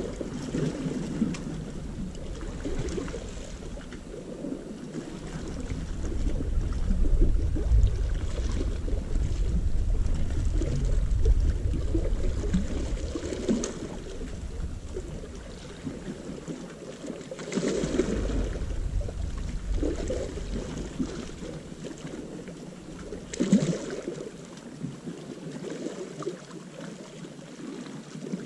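Sea water washing against a rocky shore, with wind buffeting the microphone in low rumbling gusts and a few short knocks.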